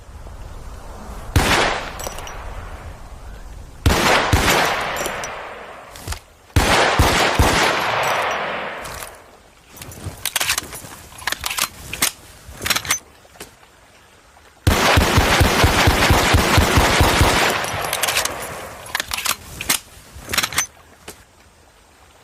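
Tokarev TT-33 pistol firing (7.62×25mm). Single shots come first, each with a long echoing tail, then scattered sharp cracks and clicks. Near the middle there is a long stretch of very rapid shots run together.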